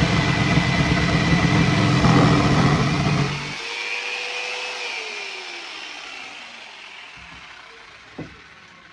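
Corded jigsaw cutting through a wooden countertop, the blade chattering hard, then switched off about three and a half seconds in, its motor winding down and fading. A single light knock near the end as the saw is set down on the counter.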